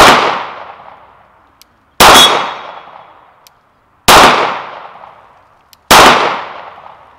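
Glock 19 Gen 5 9mm pistol firing four single shots about two seconds apart, each a sharp crack trailing off in echo.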